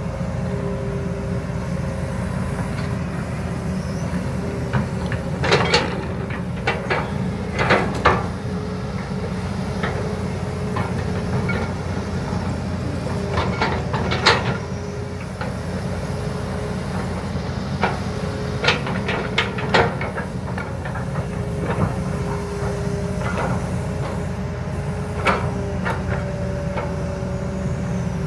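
Kobelco and Hitachi crawler excavators digging a mud trench: diesel engines running steadily under load, with a faint whine that comes and goes. Sharp metallic knocks and clanks from the buckets and arm linkages sound every few seconds, in small clusters.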